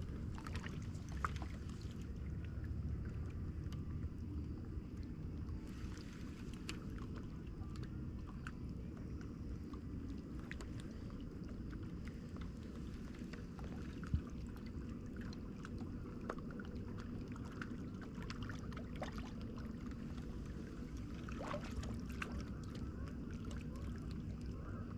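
Steady low outdoor rumble with small water sounds, like water lapping at the bank, and scattered faint light clicks, one sharper click about 14 seconds in.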